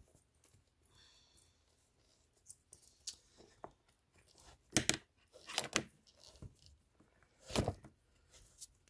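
Hands handling a leather-laced Louis Vuitton monogram canvas handbag: leather lace and coated canvas rubbing and scraping in a few short rasps, the loudest about five and seven and a half seconds in.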